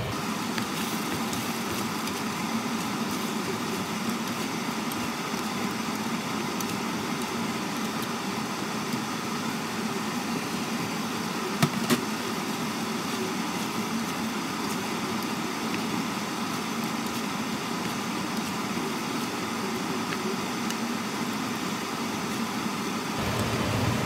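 Seafood in red curry-paste sauce sizzling and bubbling in a pan on the hob, a steady hiss. Two sharp knocks come a little under halfway through.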